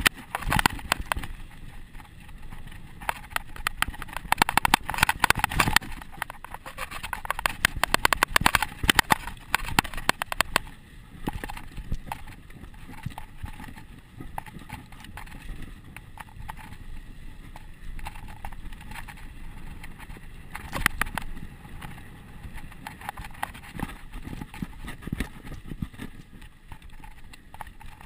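Mountain bike descending a dry dirt trail at speed: the tyres run over loose dirt while the bike's frame and components clatter and rattle over bumps, with wind rushing on the microphone. The rattling is busiest in roughly the first ten seconds and flares again about two-thirds of the way through.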